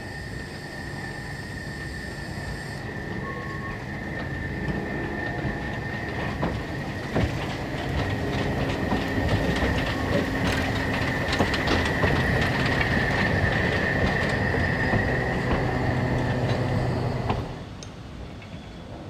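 Narrow-gauge steam train, a Saxon IV K locomotive and its coaches, rolling past close by, with a steady high wheel squeal from the curve and clicks over the rail joints. It grows louder, is loudest about two-thirds of the way through, then drops suddenly to a quieter sound near the end.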